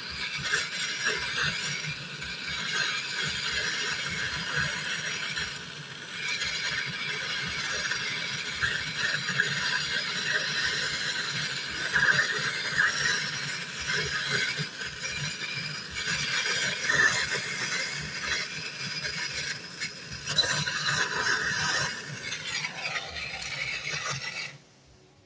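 Brazing torch flame hissing with a crackle while copper tubes are brazed onto a refrigerator compressor. There is a short falling tone just before the sound cuts off suddenly near the end.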